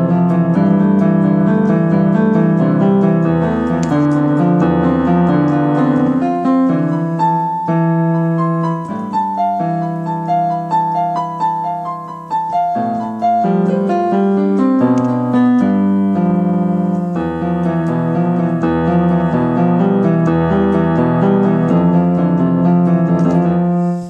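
Piano playing slow, held chords over low bass notes, with a higher single-note melody in the middle stretch.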